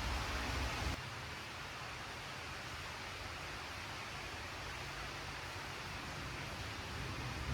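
Steady hiss of heavy rain, with a louder stretch carrying a low rumble that cuts off abruptly about a second in.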